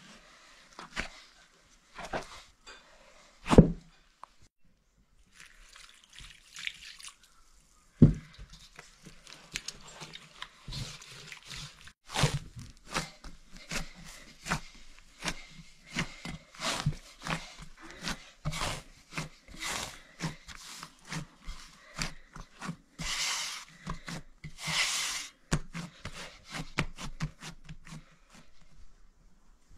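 Hands kneading a large batch of soft bread dough in a basin: irregular wet squelches, slaps and sticky clicks, with two heavier thumps in the first eight seconds and a couple of longer swishing presses later on.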